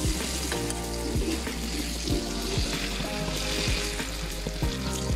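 Unniyappam batter sizzling as it is poured into hot coconut oil in the wells of an unniyappam pan, the oil bubbling up around each portion. Background music with a beat plays over it.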